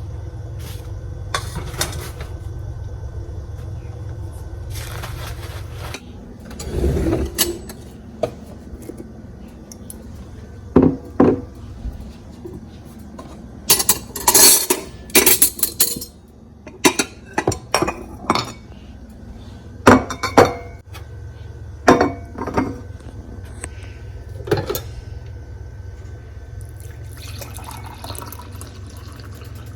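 Dishes and cutlery clinking and clattering in a kitchen, a run of sharp knocks and clinks that is busiest around the middle, over a steady low hum.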